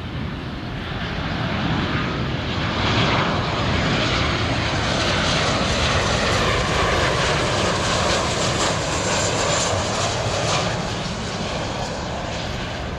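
Jet airliner's engines passing by, a broad roar that swells to its loudest for several seconds and then eases slightly.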